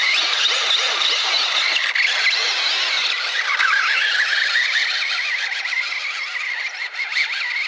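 Electric motor of a radio-controlled rock crawler whining high, the pitch wavering up and down all the while as the throttle is eased for a slow crawl. The motor is struggling at crawl speed: it does not like moving slowly.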